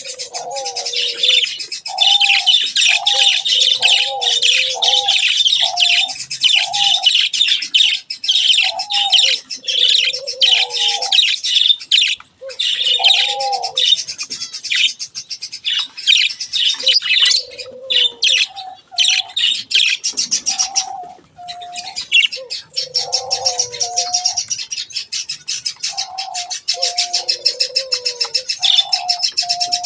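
A flock of budgerigars chattering and warbling, a dense run of fast high chirps with a few short breaks. Through it come short, lower, repeated call notes from another bird, some of them bending in pitch.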